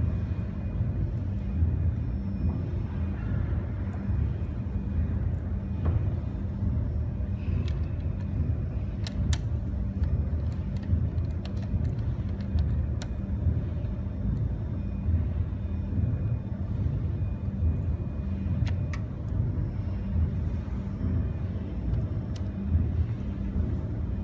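Steady low rumble, with a few faint light clicks of a screwdriver working on the breaker's terminal screws.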